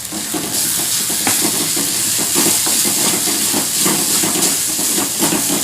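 Onion and spice tempering frying in hot oil in a pan, a steady sizzle that grows louder about half a second in, with the short scrapes of a spatula stirring it.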